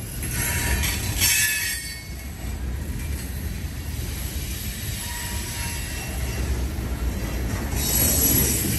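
Loaded freight cars rolling past on the rails with a steady low rumble of wheels. High-pitched wheel squeal rises over it about a second in and again near the end.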